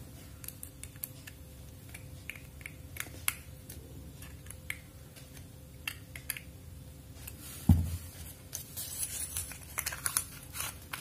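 Small irregular clicks, taps and rustles of hand tools and wire being worked on a bulb holder's screw terminal, with one dull thump about eight seconds in.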